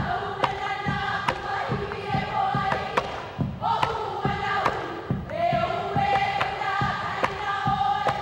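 Hawaiian mele inoa (name chant) for hula kahiko: a chanted voice holding long, drawn-out notes in phrases a few seconds long, over a steady percussion beat of low thumps and sharper slaps about two a second.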